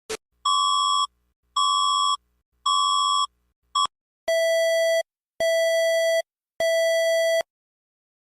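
Electronic alert tone in beeps: three beeps at a higher pitch about a second apart, a short blip, then three slightly longer, buzzier beeps at a lower pitch, each under a second long.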